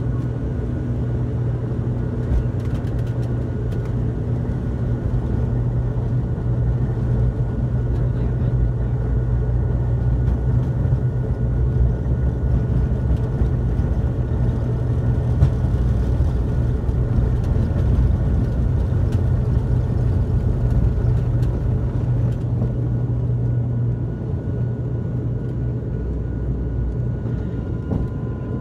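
The ATR 72-600's Pratt & Whitney PW127M turboprop engines and propellers at takeoff power, heard from inside the cabin during the takeoff roll. It is a loud, steady low drone with a steady high whine over it, easing slightly near the end as the aircraft lifts off.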